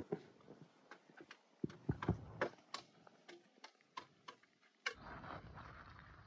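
Faint footsteps on a dirt road, soft irregular ticks at about two steps a second. About five seconds in they stop and a steady faint outdoor hiss takes over.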